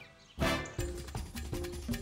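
Cartoon background music: a short loud note about half a second in, then a light, quick run of short staccato notes.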